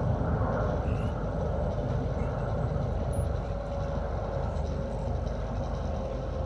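Steady outdoor background noise, mostly a low rumble of distant road traffic, with a few faint short chirps about one and two seconds in.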